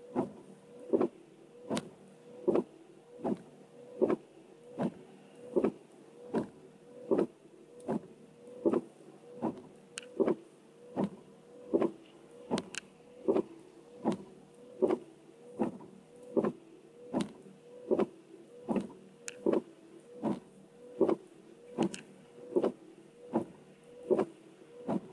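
Car windscreen wipers sweeping steadily, a short rubbing thump on each stroke a little more than once a second.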